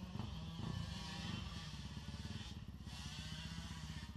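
Kawasaki KX 250F four-stroke single-cylinder dirt bike engine idling steadily, with an even, rapid firing pulse.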